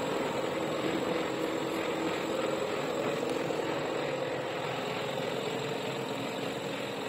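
Steady, even drone of workshop machinery running.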